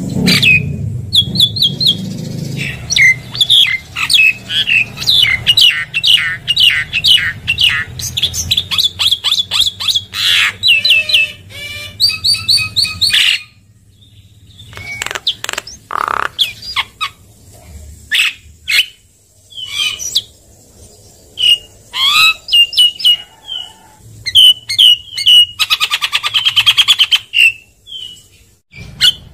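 Javan myna (jalak kebo) singing: fast runs of sharp chirps and whistles, a short pause about halfway through, then sparser calls and a buzzy rattle near the end.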